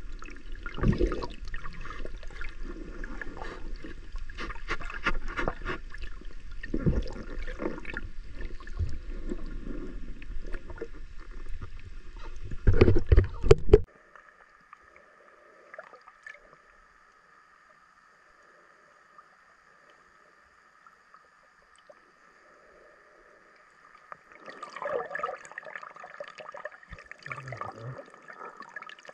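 Water sloshing and bubbling with knocks against a camera's underwater housing, muffled by the case, that cut off abruptly about halfway. Then a faint steady whine, with muffled scuffing and rustling near the end.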